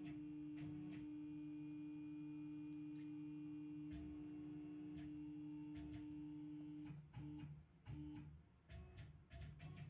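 Tormach CNC mill's Z-axis drive whining on one steady tone as the head lowers the Haimer 3D taster toward the part. About seven seconds in the steady tone stops and gives way to short separate bursts of the same whine, as the axis is moved in small steps.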